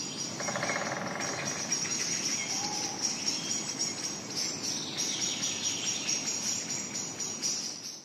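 Nature ambience of insects and birds calling: a dense, high, pulsing chirring, with a quick rattling trill about half a second in and a brief call near three seconds.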